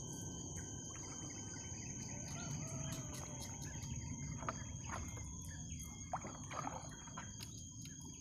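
Insects chirring steadily as one constant high thin note. Faint scattered rustles and clicks come in now and then as a nylon gill net is pulled by hand over the side of a boat.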